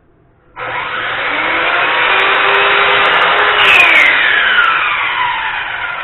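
Radial arm saw starting up about half a second in and cutting a thin sliver off a wooden frame piece. A falling whine follows as the blade winds down.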